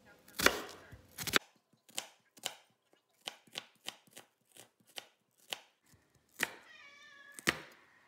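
Kitchen knife dicing an onion on a wooden cutting board: a couple of loud chops, then a run of quicker, lighter taps. Near the end a cat meows once, followed by another chop.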